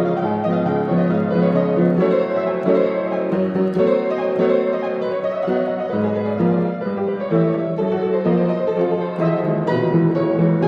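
Piano music with held chords.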